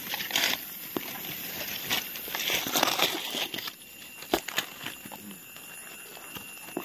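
Dry leaf litter rustling and crackling, with a couple of sharp snaps; the rustling is louder in the first half and quieter from about halfway.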